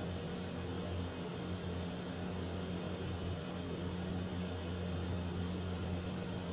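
Steady machine hum: a constant low drone over a faint hiss.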